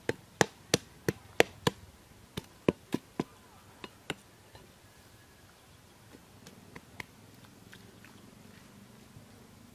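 A curved sickle blade chopping into wet, muddy ground: about a dozen sharp chops in quick succession over the first four seconds, then a few faint ticks.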